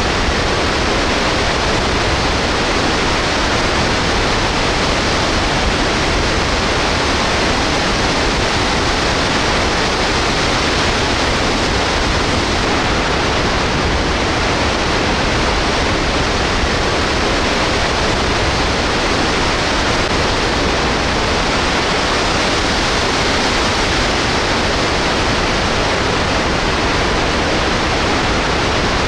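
Snoqualmie Falls in flood stage, its heavy torrent of water plunging into the pool below with a loud, steady roar.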